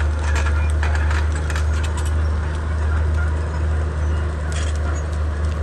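Komatsu D31P bulldozer's diesel engine running steadily with a deep drone, with a quick run of sharp knocks and clanks in the first two seconds and another knock later.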